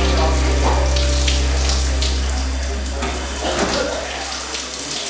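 Shower water spraying and splashing steadily, under a low steady hum that fades away over the last two seconds or so.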